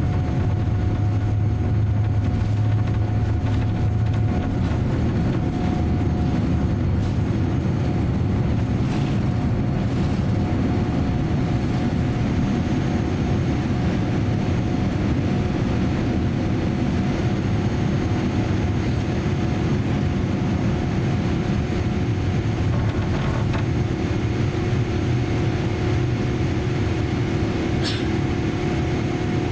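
Cabin noise of a Boeing 787-10 on its takeoff roll and initial climb: a steady engine roar under takeoff thrust with a couple of steady hums. A low rumble eases off a few seconds in as the aircraft leaves the runway, and there is a brief click near the end.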